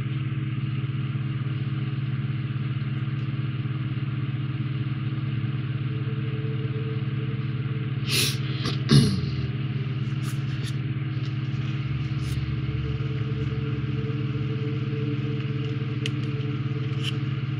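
A steady low hum runs throughout, with a few small clicks and knocks about eight to nine seconds in and a few more near the end, from a glue bottle and small plastic model parts being handled on the workbench.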